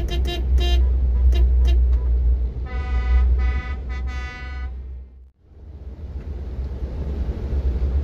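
Vehicle horns honking: a quick run of short toots, then three longer blasts about three to four and a half seconds in, over the steady low rumble of a car driving on the road. The rumble cuts out briefly a little after five seconds in.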